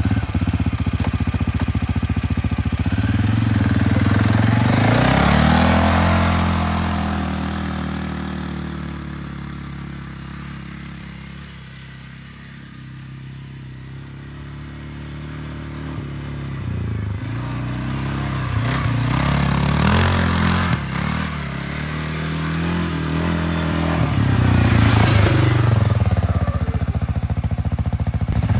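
CFMoto CForce 600 ATV's single-cylinder engine running steadily, then revving up as the quad pulls away. The engine sound fades as it drives off to its faintest about halfway through, then grows louder again with revs rising and falling as it comes back close.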